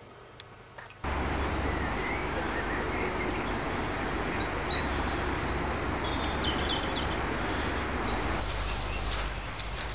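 Outdoor ambience that cuts in suddenly about a second in: a steady rush of noise over a low rumble, with birds chirping now and then. Near the end comes a run of short clicks.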